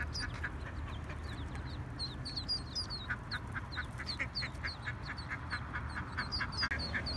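Ducklings peeping: a busy run of short, high, falling peeps, several a second.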